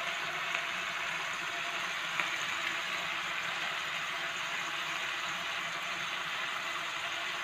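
Ground-meat burger patties sizzling steadily in oil in a frying pan.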